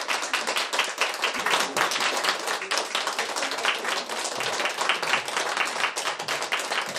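A small audience applauding, many people clapping their hands at once.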